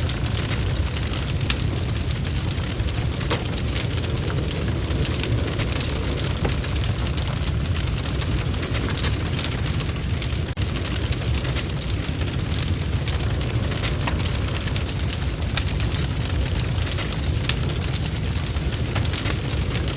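Bonfire crackling, with many small sharp pops and snaps scattered over a steady low rumble of the burning.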